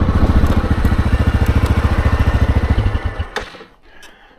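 ATV engine idling with an even, rapid pulse, then shut off about three seconds in. It dies away quickly, with a click.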